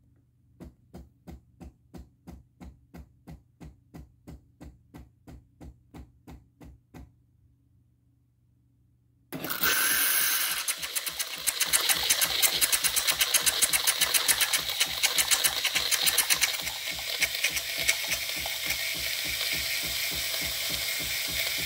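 Philips 3200 automatic espresso machine frothing milk. It starts with soft, evenly spaced pump pulses, about three a second, then goes briefly quiet. Around nine seconds in, a loud, steady hissing begins with a fast pulsing running through it: steam and hot water being forced through to froth the milk.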